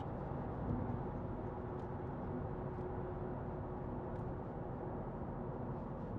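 Steady road and engine noise inside the cabin of a 2021 Nissan Micra with its 1.0-litre three-cylinder turbo petrol engine, driving along at an even pace.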